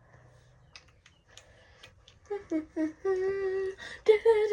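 A few faint small clicks, then a girl's voice humming a few wordless notes from about two seconds in, holding one steady note for about a second.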